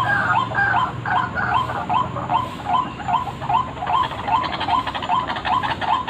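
White-breasted waterhen (ruak-ruak) calling, a lure recording: an even run of short repeated call notes, about two to three a second, with notes overlapping in the first second or so.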